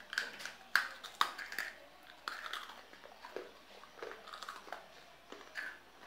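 A crisp round biscuit being bitten and chewed noisily close to the microphone: several sharp crunches in the first two seconds, then repeated chewing. The eating noise is deliberately exaggerated.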